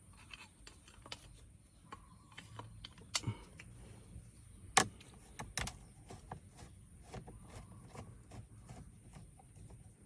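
Small metallic clicks and clinks of a hand tool working the bolts on a car's steering column, with a few sharper knocks, the loudest about five seconds in.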